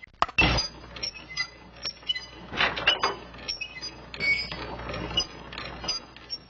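Irregular clicking and clinking, like a mechanism at work, with short high-pitched tones in between.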